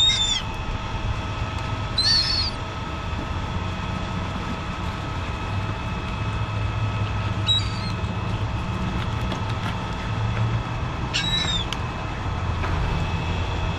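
Four short, high bird calls, each rising then falling, spread a few seconds apart over a steady low rumble.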